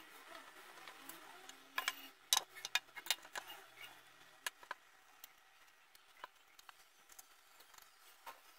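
Hands handling a copper box: a quick run of sharp clicks and light metallic taps about two seconds in, then a few scattered ticks.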